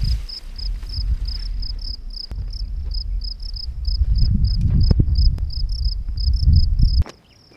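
An insect chirping steadily in short, evenly spaced high pulses, about five a second, over a gusty low rumble of wind on the microphone that cuts off abruptly about seven seconds in.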